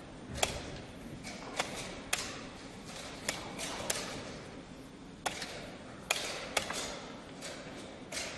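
Wooden chess pieces being set down on the board and chess clock buttons being pressed in quick turns during a blitz game: about nine sharp knocks and clicks at uneven intervals, some with a short ring.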